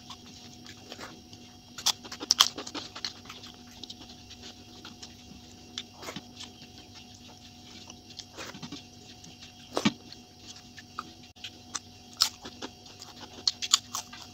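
Eating sounds sped up three times: sharp mouth clicks and smacks from chewing rice eaten by hand, coming in scattered clusters over a faint steady hum.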